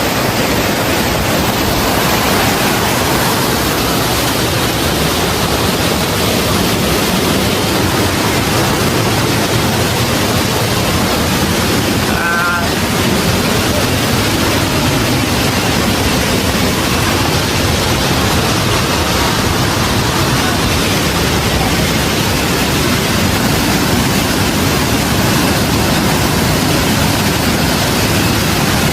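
Steady rush of flowing stream water. A brief pitched sound cuts in about twelve seconds in.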